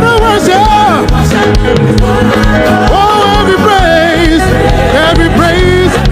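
Loud live gospel praise music from a choir and band, with a melody line that slides and wavers in pitch over steady drums and bass.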